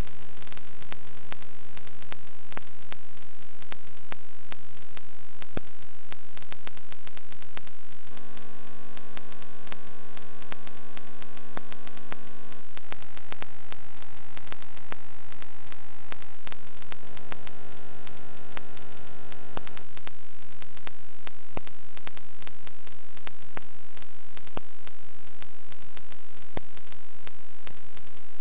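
Loud steady static on a dead TV audio feed: hiss crackling with many clicks over a low mains hum and a thin high whine. From about 8 to 20 seconds in, a buzzy tone joins it, shifting pitch in a few steps.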